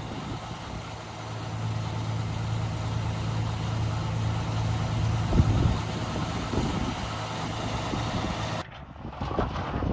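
Heavy diesel engine of work-site machinery idling with a steady low hum, with one brief knock about halfway through. Near the end the hum cuts off and gives way to wind buffeting the microphone.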